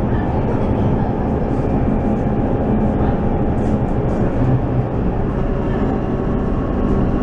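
Inside a moving Scania K230UB city bus: the five-cylinder diesel engine running steadily under way, with road and tyre noise and a low rumble throughout the cabin.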